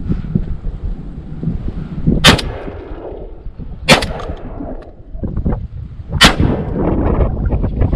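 Three shotgun shots, about a second and a half and then two and a half seconds apart, the spent hull ejected after a shot.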